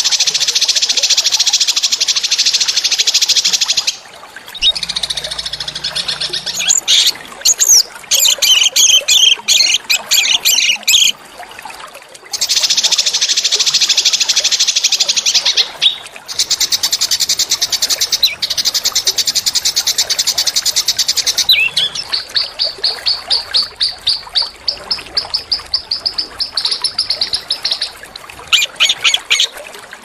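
Small songbirds singing long, fast, high-pitched rattling trills in blocks of several seconds with brief pauses between them, and a slower run of chirps about three a second near the end. This is recorded song used as masteran tutor material for caged white-rumped shamas.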